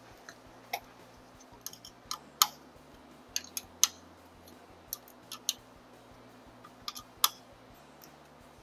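Scattered sharp clicks and light metallic taps, about a dozen at irregular intervals, from hand tools and metal parts being handled while bolts are snugged on the handlebar.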